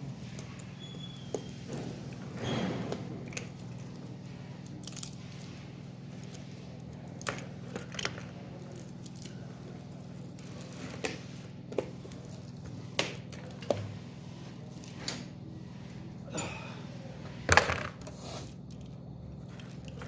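Scattered clicks, taps and small metallic knocks of hand work on an e-bike battery pack being taken apart, the sharpest knock near the end, over a steady low hum.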